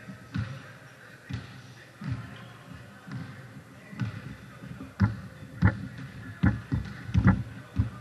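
Basketball bouncing on a court floor: separate thuds about once a second at first, coming quicker and louder in the second half, as in dribbling.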